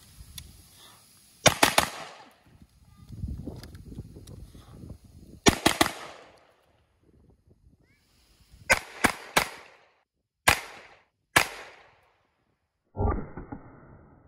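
Pistol shots fired at a target. They come in quick groups of three or four, then two single shots, and a last shot near the end.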